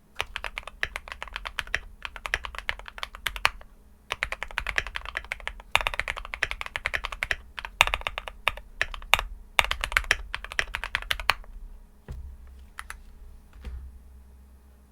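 Fast typing on an Akko MOD001 custom mechanical keyboard with linear JWK Ultimate Black housing / Kailh Red stem switches on a PC plate with foam dampening: rapid runs of keystrokes with short pauses between them. After about eleven seconds the typing stops, leaving only a few isolated key presses and a soft low thump.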